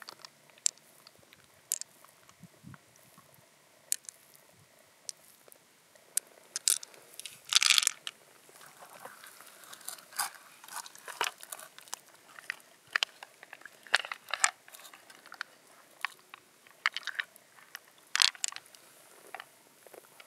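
Scattered sharp clicks and wet crunching from hands working an opened freshwater mussel, as pearls tap against the shell's nacre and against each other. A longer crunch comes about eight seconds in.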